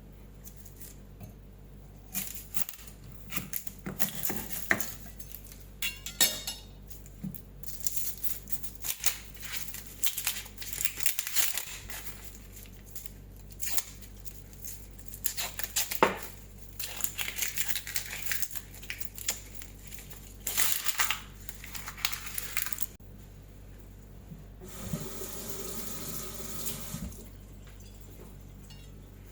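Kitchen handling sounds: dishes and utensils clinking and clattering in irregular bursts, then a tap running briefly near the end.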